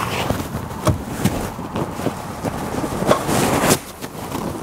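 Toyota RAV4 rear seat being folded flat by hand: irregular clicks and knocks from the seat mechanism and the upholstery being handled, with a louder rush of handling noise about three seconds in.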